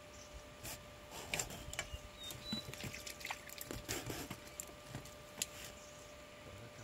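Scattered small clicks and rustles, as of gear being handled, over a faint steady hum.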